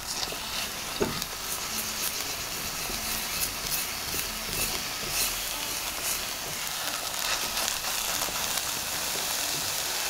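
Choux pastry dough sizzling in a saucepan over heat as it is pressed and turned with a silicone spatula, the stage where the paste is cooked and dried out after the flour goes in. A steady hiss with light scraping and a few soft clicks of the spatula.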